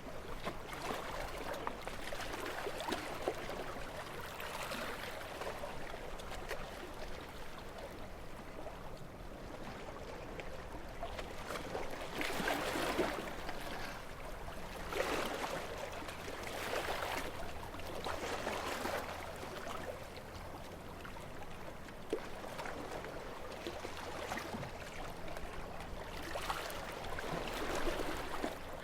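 Calm sea with small waves washing in, a steady watery hiss that swells and falls every couple of seconds.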